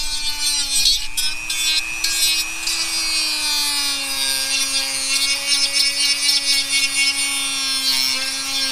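Dremel rotary tool running at high speed, grinding away the plastic ring of a stock speaker bracket. A steady high whine over a gritty grinding noise, wavering slightly in pitch as the bit bites into the plastic.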